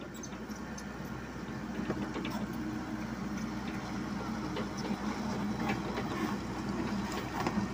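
Komatsu PC78US mini excavator's diesel engine running steadily as the machine moves on its tracks, with scattered light clicks and clanks over the engine hum.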